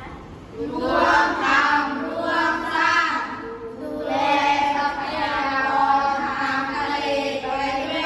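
A group of children's voices chanting in unison, in two long drawn-out phrases with a short break about three and a half seconds in.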